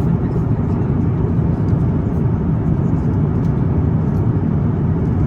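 Steady cabin noise inside an Airbus A350-900 in flight: an even, low rumble of the Rolls-Royce Trent XWB engines and the airflow over the fuselage, without change in level.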